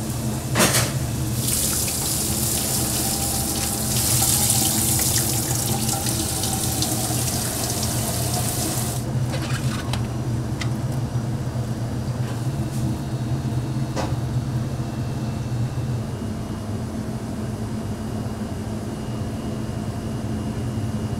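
Water running hard from a tap into a kitchen sink, then shut off about nine seconds in, over a steady low hum.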